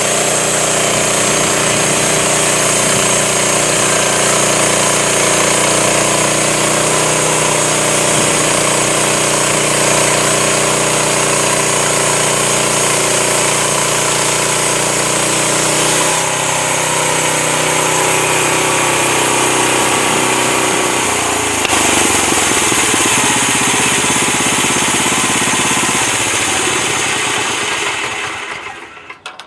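Home-built Crosswood Model #28 band sawmill running at full power, its band blade sawing through a honey mesquite log: a loud, steady machine noise with a hissing cut over the motor. The sound shifts about halfway through and again a few seconds later, then dies away and stops near the end.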